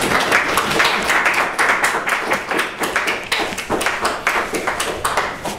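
Audience applauding, a dense patter of many people clapping.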